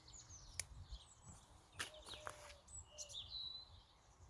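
Small birds chirping and twittering faintly, in many short quick notes, with a few sharp clicks and a low rumble of wind on the microphone.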